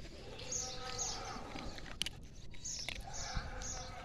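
A puppy crunching dry kibble from a bowl: short crisp crunches in little runs of a few at a time, with pauses between bites.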